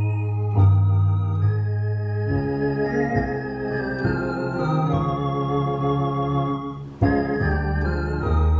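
Two-manual electronic organ playing a slow hymn in sustained chords over a deep bass line, the chords changing every second or so, with a short break between phrases about seven seconds in.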